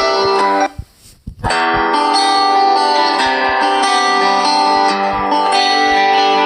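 Ringtone music: a plucked-string, guitar-like melody that breaks off under a second in, then after about half a second of near silence a plucked tune starts again and plays on.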